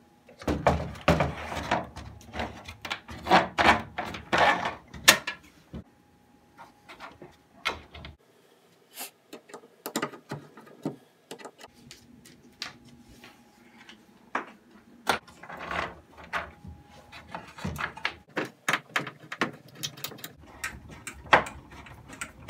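Wooden sauna wall and heater panels being handled and fitted: irregular knocks, clacks and scrapes of wood on wood. They come thickly for the first few seconds, thin out for a while, and pick up again after about fifteen seconds.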